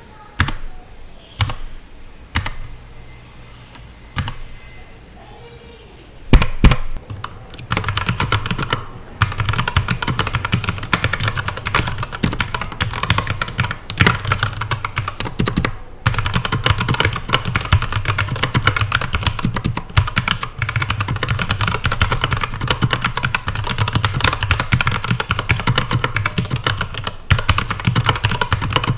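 Keychron K8 mechanical keyboard with brown switches. A few single key presses come about a second apart, then a louder clack about six seconds in. After that comes continuous fast typing, a dense run of key clicks.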